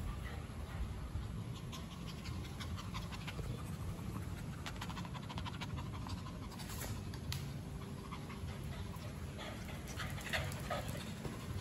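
Puppies panting close by, with scattered light clicks over a low steady rumble.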